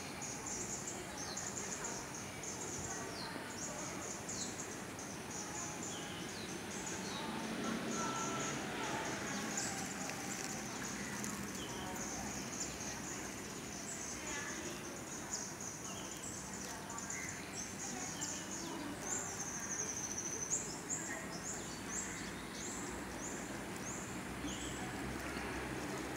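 Outdoor ambience: a continuous run of short, high-pitched chirps, many falling in pitch, over a low, steady background hum.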